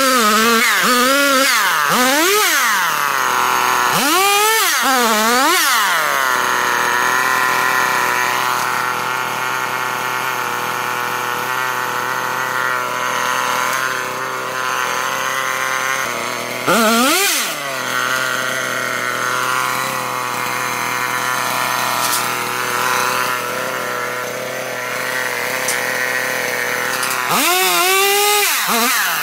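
Two-stroke chainsaw idling steadily, revved up in four short bursts as it cuts into small tree trunks.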